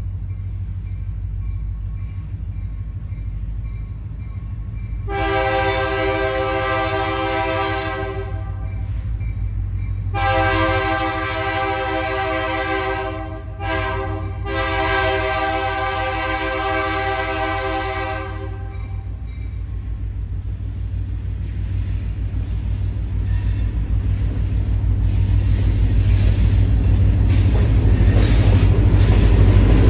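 Lake State Railway diesel locomotive sounding its air horn in the grade-crossing pattern, long, long, short, long, starting about five seconds in. Beneath it the locomotives' diesel engines rumble steadily, growing louder as the train approaches.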